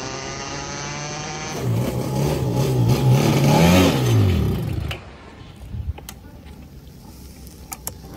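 Go-kart engine running at a steady note, then louder under throttle with its pitch rising and dropping, then winding down in a falling pitch about four seconds in as the kart slows. After that the engine is faint, with a few light clicks near the end.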